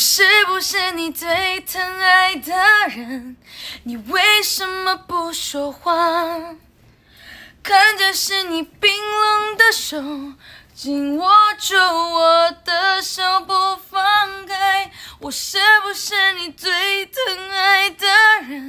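A young woman singing a slow, sad Mandarin ballad unaccompanied, in several long phrases of held notes with vibrato.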